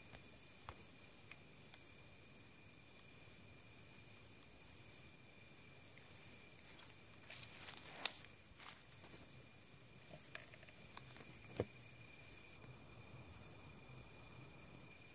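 Night insects: a steady high-pitched trill from crickets, with a shorter chirp repeating over it every second or so. A few faint snaps and rustles sound in the undergrowth about eight and eleven and a half seconds in.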